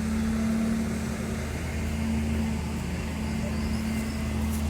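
An engine running steadily with a low, even hum, most likely road-works machinery.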